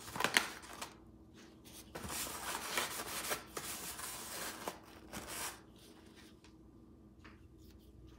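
Rustling and crinkling of food packaging being handled, with a few light clicks, in bursts over the first five and a half seconds, then only faint rustles.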